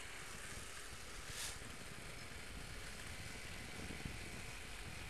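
Motorcycle on the move: a steady low rumble of the engine under the hiss of wind on a helmet-mounted microphone.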